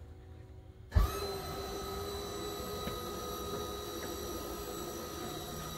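HWH hydraulic slide-room pump motor switching on with a sharp start about a second in, then running with a steady whine as the ram draws the slide room in.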